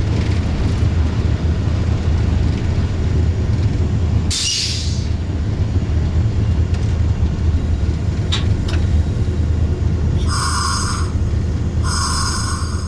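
Diesel locomotive running with a steady low engine drone and rail noise, heard from the cab. A short burst of air hiss comes about four seconds in, and near the end the horn gives two short blasts.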